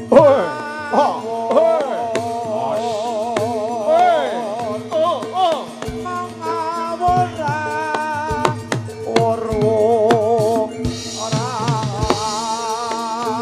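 Jathilan gamelan music: drum strokes over sustained tones, with a wavering, vibrato-laden melody line on top.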